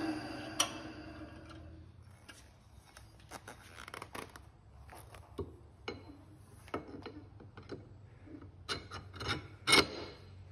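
Drill press motor spinning down, its pitch falling and fading out over the first second or two. Then a series of light clicks and knocks as a metal mounting plate is handled and set onto the studs of an electric outboard pod, the loudest knock near the end.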